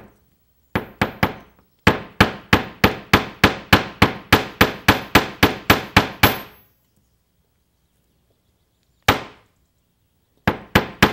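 Steel hammer striking wire on a steel plate, sharp metallic taps with a short ring. It starts with a few quick blows, then a steady run of about four a second for some four seconds, a pause, a single blow, and another run near the end. The hammering flattens the earring wire and work-hardens it.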